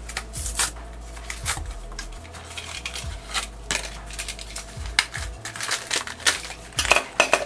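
Cardboard blind box being torn open and a small hard-plastic toy pet carrier handled and pried open: irregular clicks, snaps and crinkles of cardboard and plastic, sharpest about five seconds in and near the end.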